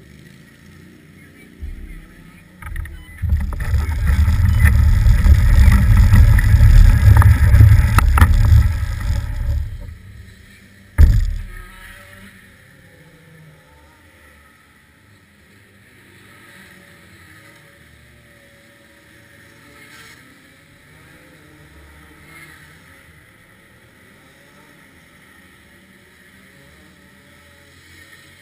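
Loud, low rumbling on the onboard camera of a stopped kart for about six seconds, then a single sharp knock. After that, only faint wind and outdoor background.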